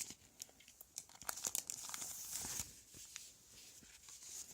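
Sticker packaging crinkling and rustling as it is handled and opened, with irregular small crackles that thicken from about one to two and a half seconds in.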